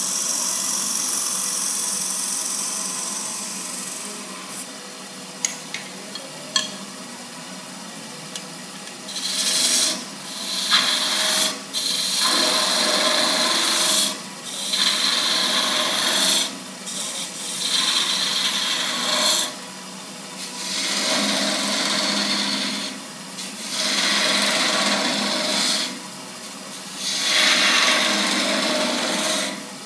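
Turning tool cutting a thin-walled wooden goblet spinning on a lathe, throwing off shavings as the wall is thinned. The cut runs steadily for a few seconds, eases off, then from about nine seconds in comes as a string of passes a second or three long, each stopping briefly before the next.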